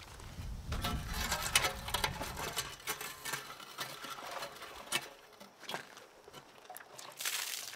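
Rinse water sloshing and spattering inside a cut-open stainless steel beer keg as it is lifted and tipped, with small knocks of hands on the metal. Near the end the water starts pouring out onto gravel with a rushing splash.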